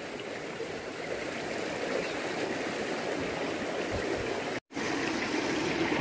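Shallow mountain stream flowing over rocks, a steady babble of water. It cuts out for an instant about three-quarters of the way through and resumes slightly louder.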